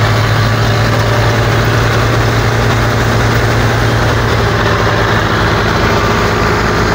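Belarus 510 tractor's diesel engine running at a steady speed with a strong low hum, driving a wheat thresher. It holds the same loud, even note throughout.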